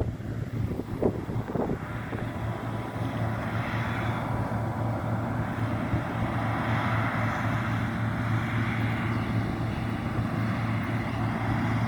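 John Deere T670i combine harvester running as it cuts: a steady engine hum under a rushing noise that swells a little from about three seconds in.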